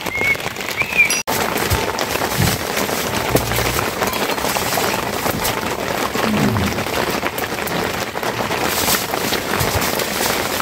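Steady rain falling, a dense even hiss that drops out abruptly for an instant about a second in.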